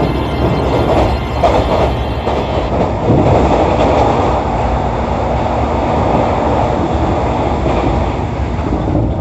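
A train's running noise heard from inside a carriage as it crosses a steel truss bridge, a loud steady rumble with wheel clatter on the rails. About three seconds in it grows louder as another train rushes past close alongside.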